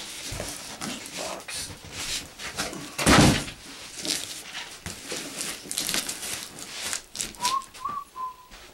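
Cardboard boxes being handled: rustling and scraping as a telescope's inner box is worked out of its outer shipping carton, with a loud thump about three seconds in. A few short high squeaks come near the end.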